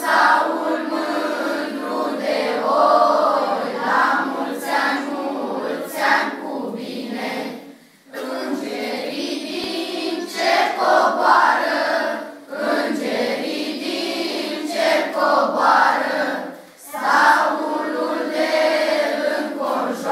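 A group of voices singing together, the phrases breaking off briefly about 8 and 17 seconds in.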